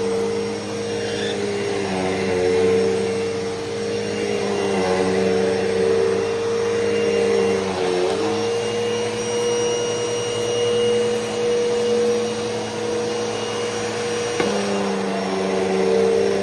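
Hoover Elite Rewind upright vacuum cleaner running steadily, its motor pitch dipping briefly about eight seconds in and shifting again near the end.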